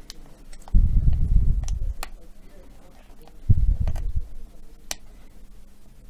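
Light clicks and ticks from small laptop parts and tools being handled, with two dull low thuds of handling noise, one about a second in and one past the midpoint.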